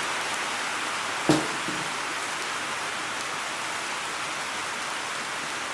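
Banana-leaf-wrapped sardine parcels sizzling steadily in oil on a hot tawa, uncovered. A single short knock about a second in.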